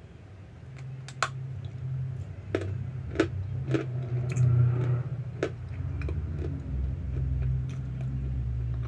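Hard chunks of Argo laundry starch being bitten and chewed close to the mic: irregular sharp crunches and crackles over a steady low hum.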